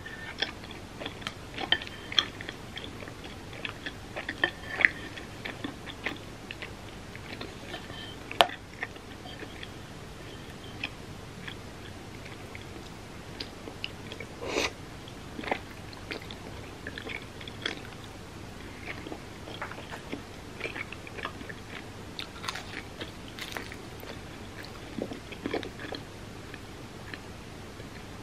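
A person biting and chewing food close to the microphone: a steady run of short mouth clicks and chewing noises, with one sharper click about eight seconds in.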